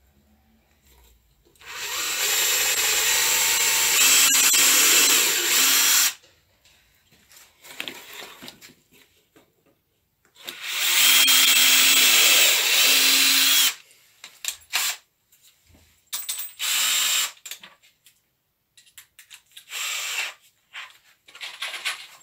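Cordless drill driving wood screws into the birdhouse's wooden front panel: two long runs of about four and three seconds, then a short burst later on, with small knocks of handling in between.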